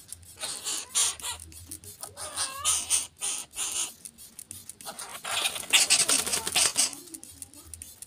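Greater coucal bathing in a shallow puddle, splashing water and fluttering its wet wings, with a dense burst of splashing about five seconds in.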